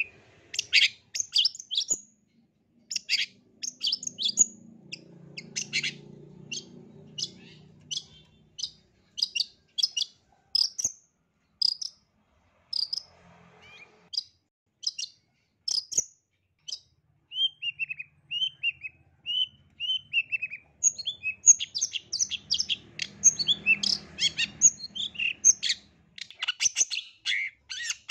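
Long-tailed shrike singing: a run of sharp, high chips and chatters, dense at first, then spaced out to roughly one a second, then a string of short down-slurred notes, and a fast chattering burst near the end.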